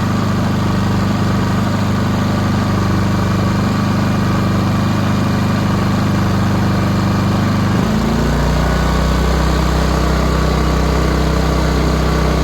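WEN 4500-watt inverter generator's engine running steadily on its first run. About eight seconds in its pitch drops and it settles to a lower speed, as it does with the low-idle mode switched on.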